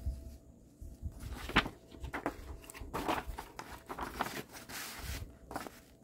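Paper rustling and crinkling as the pages of a paper manual are handled and turned, in a string of irregular swishes, the loudest about one and a half seconds in.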